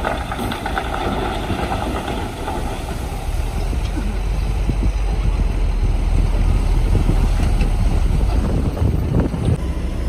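Heavy construction machinery engine running with a deep, steady rumble that grows louder about four seconds in.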